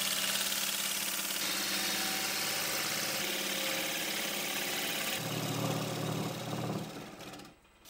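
Wood lathe running while a turning tool cuts across the end face of a spinning willow blank: a steady motor hum under the hiss of the cut. About five seconds in the hiss eases and the hum grows fuller, then the sound fades out just before the end.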